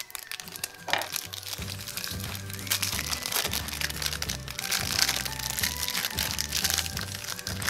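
Crinkling and crackling of a clear plastic wrapper as it is peeled off a small plastic piece by hand, over background music with steady bass notes.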